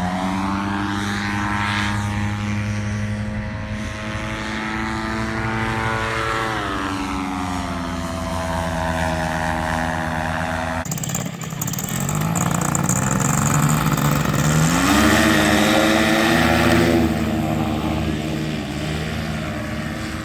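Paramotor engine and propeller running at high power. The pitch climbs at the start, dips and recovers about six seconds in, breaks off suddenly near the middle, then rises again a few seconds later.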